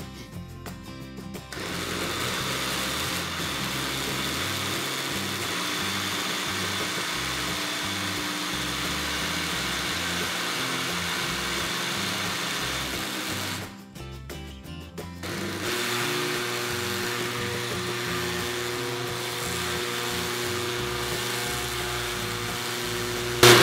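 Countertop blender motor running at speed, blending a liquid cornmeal cake batter. It runs steadily in two long stretches with a short break about fourteen seconds in.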